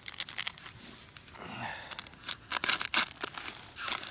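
Plastic groundbait packet being handled and torn open, with dense crinkling and tearing crackles.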